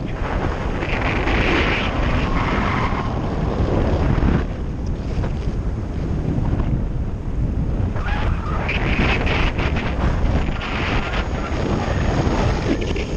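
Airflow of a paraglider in flight rushing over the camera's microphone: a steady low rumble of wind noise with gusty surges of hiss.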